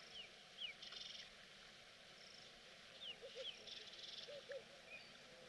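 Faint birds calling: a few short descending chirps, a couple of brief buzzy trills, and soft low double calls around three and four and a half seconds in.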